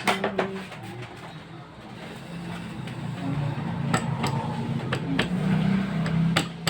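A vehicle engine running at a steady pitch, growing louder from about two seconds in, with several sharp metallic clicks and taps of tools on metal parts.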